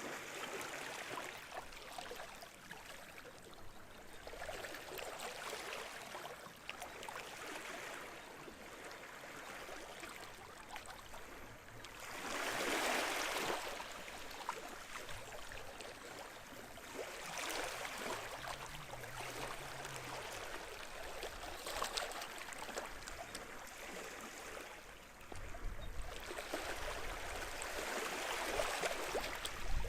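Small waves washing and lapping on the shore of a sheltered bay, a gentle wash swelling and fading every few seconds, the largest about twelve seconds in. A low rumble comes in near the end.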